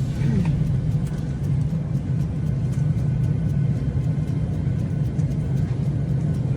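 Steady low rumble of a moving vehicle's cabin, with no voices over it.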